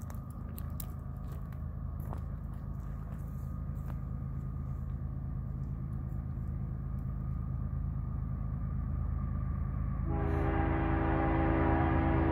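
Approaching BNSF coal train's diesel locomotives: a low rumble growing steadily louder, then about ten seconds in the locomotive air horn sounds a steady chord of several notes.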